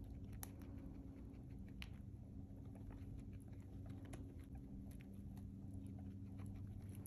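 Guinea pigs nibbling and crunching at a hay treat topped with dried vegetable flakes: faint, irregular small crunches and clicks.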